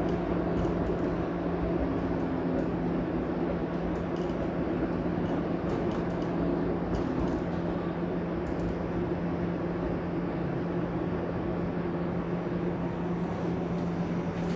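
Inside a TTC Flexity Outlook streetcar: a steady low hum over a rumble, with scattered small clicks and rattles.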